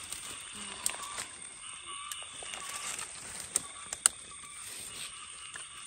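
A knife digging and scraping in soil and dry litter to lift out termite mushrooms, with a few sharp clicks, over a steady high-pitched background.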